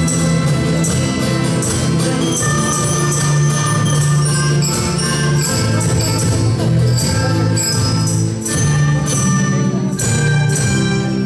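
Live student ensemble playing an Aymara sikura dance tune on Andean panpipes (sikus) and other instruments, with a steady low bass line and frequent short struck notes.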